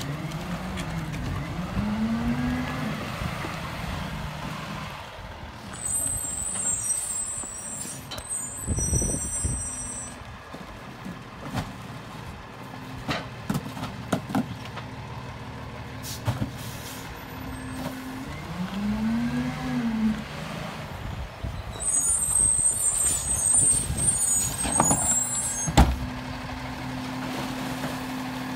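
Diesel engine of a Freightliner M2106 rear-loader garbage truck revving up and back down twice, with two air-brake hisses and scattered bangs and knocks as recycling carts are tipped into the Heil Durapack hopper.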